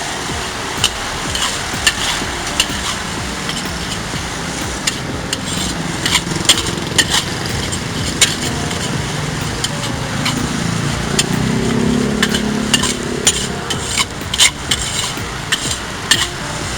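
Fried rice being stir-fried in a wok: a metal spatula clanks and scrapes against the wok in quick, irregular strokes over a steady sizzling hiss.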